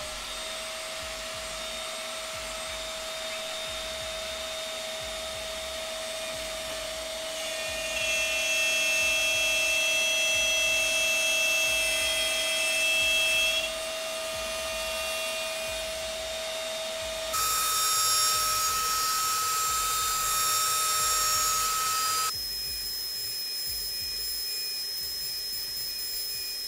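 CMT8E 1010-watt plunge router spinning up to speed at the start, then running with a steady whine. It grows louder twice, for about six seconds and then for about five, as its straight bit cuts roughly half a centimetre into a fir board. The dust extractor draws through the hose alongside.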